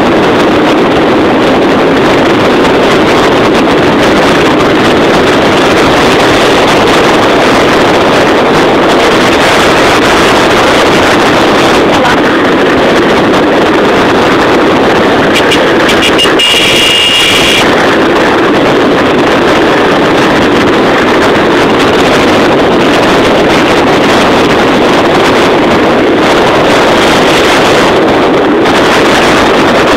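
Motor scooter running at speed, about 60 km/h, with heavy wind buffeting the microphone, loud and steady throughout. A brief high-pitched tone sounds about halfway through.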